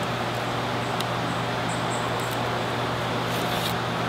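Steady hum and hiss of a workshop fan or air-conditioning unit, with a few faint light ticks.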